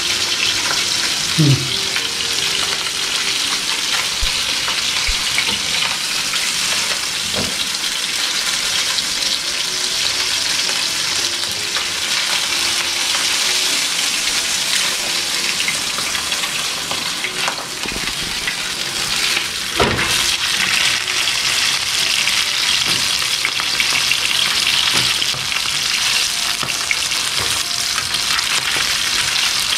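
Salmon fillet sizzling skin-side down in hot oil in a frying pan: a steady frying hiss, with a few light clinks of a metal spoon in the pan as oil is spooned over the fish.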